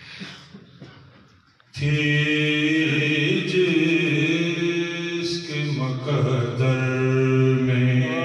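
A man reciting a naat, unaccompanied, in a chanted singing voice. It begins suddenly about two seconds in with long held notes, then turns to a wavering, ornamented line.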